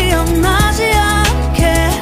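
Background music: a pop song with a gliding melody line over a steady bass.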